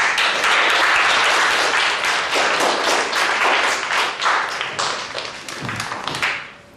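A class of schoolchildren applauding, starting all at once. The clapping thins to scattered claps and dies away just before the end.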